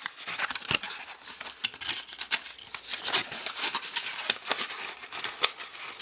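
Folded thin cardboard packaging rustling, scraping and crinkling as hands ease a Christmas bauble out of its insert: a busy run of small clicks and scratches.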